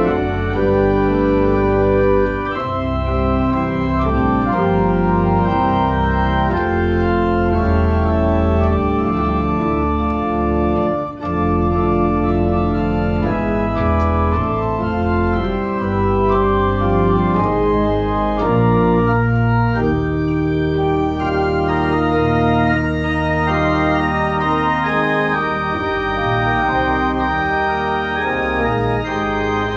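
Small 11-rank Rieger mechanical-action (tracker) pipe organ playing a piece: sustained chords whose notes change every second or so over low pedal notes, with a brief break about 11 seconds in.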